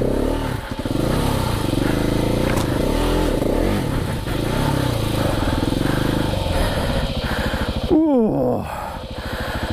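KTM 690 Enduro R's single-cylinder engine revving up and down under load off-road, its pitch swinging with the throttle, then its revs dropping sharply about eight seconds in.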